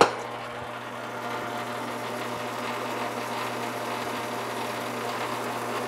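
Metal lathe running: a sharp click at the very start, then the spindle turning with a steady motor and gear hum.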